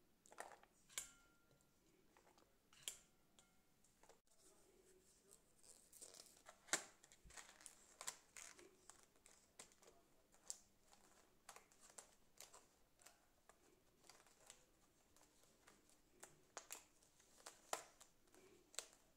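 Scattered light crinkles and clicks of aluminium foil trays as card lids are pressed on and the foil rims crimped down over them.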